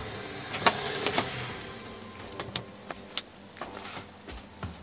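Vinyl motorcycle seat cover being handled and worked by hand, a rustling of the material with several sharp clicks from hand tools such as pliers.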